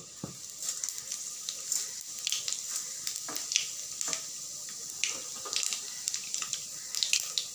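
Panch phoron seeds sizzling in hot mustard oil in a kadhai: a steady hiss dotted with many small pops and crackles.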